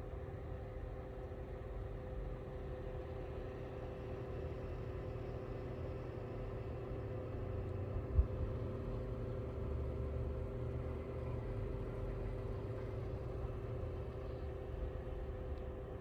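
Lasko CT32791 ceramic tower space heater running, its blower fan giving a steady hum over a low rumble. A single thump about halfway through.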